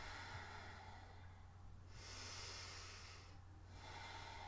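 A woman's slow, faint breathing through the nose, about three breaths in and out, each about a second long, over a steady low hum.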